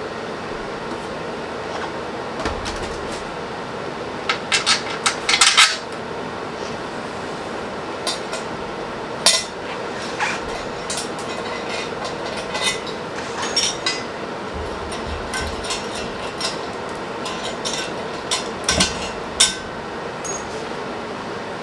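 Metal tools and parts being handled, with scattered clinks and knocks and a quick run of them about four to six seconds in, over a steady fan hum.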